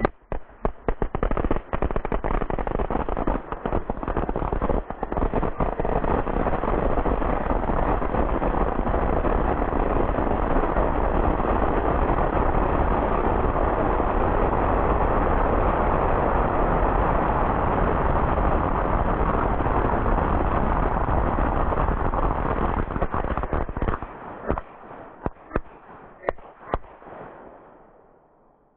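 A long string of firecrackers going off in a dense, continuous rattle of bangs for over twenty seconds. The bangs start as separate cracks, then thin out to scattered single pops near the end before stopping.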